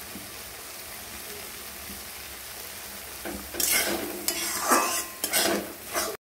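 Egg bhurji sizzling in a wok, then a spatula stirring and scraping the pan in several loud strokes over the last few seconds.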